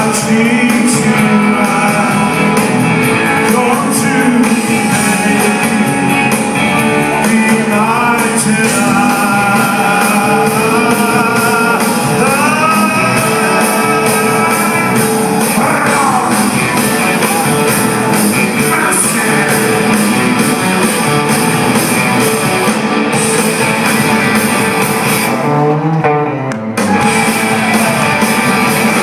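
Live rock band playing in a large hall, a singer over electric guitars, bass and drums through the PA. Near the end the music breaks off for a moment, then the band comes back in.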